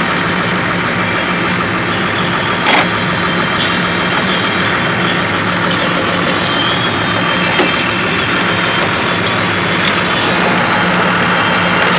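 An engine idling steadily, with one sharp click about three seconds in.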